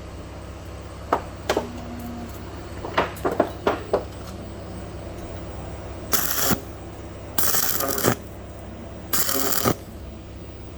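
Steel square tubing clinking and knocking as pieces are handled, then three short bursts of welding arc crackle, each under a second long: tack welds on the galvanized tube frame, over a steady low electrical hum.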